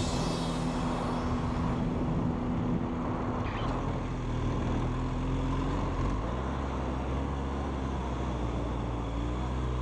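Big adventure motorcycle's engine running at a steady speed, with wind and riding noise over it. The low engine note shifts slightly about six seconds in.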